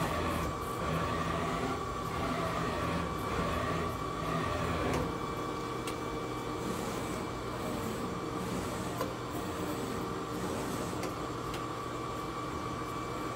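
Doosan Lynx 220LSYA CNC lathe running with its axes traversing: a steady hum under a steady high whine, with repeated swells of noise through the first five seconds as the turret moves. The axes run nice and quiet.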